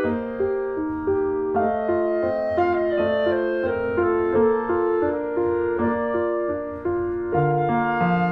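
Background music: a piano-like melody of evenly paced notes, with a lower bass part joining near the end.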